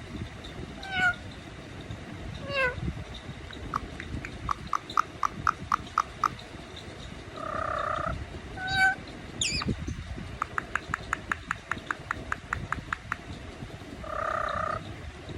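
Indian ringneck parrot mimicking a cat's meow: several short calls falling in pitch, two runs of rapid repeated chirps at about seven a second, two longer held calls and one sharp falling squawk.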